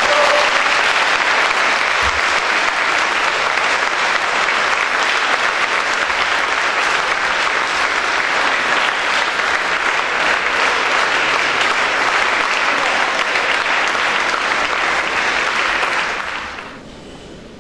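Audience applauding steadily in a concert hall after a piano performance. The applause dies away about sixteen seconds in.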